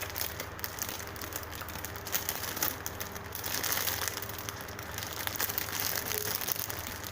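Continuous crinkling and rustling as a foam squishy toy is handled and squeezed close up.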